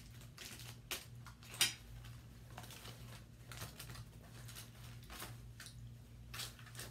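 Quiet eating noises: scattered light clicks and crinkles from a fork and aluminium foil as meat is pulled off a turkey leg, the sharpest click about a second and a half in, over a low steady hum.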